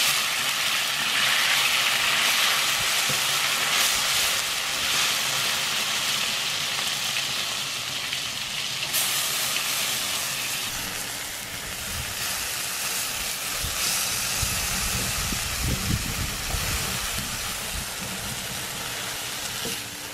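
Chile-marinated beef and pork steak strips sizzling and steaming on a hot steel comal over a wood fire, a loud hiss that starts abruptly as the meat hits the metal and slowly eases off. A few low thuds come in the second half.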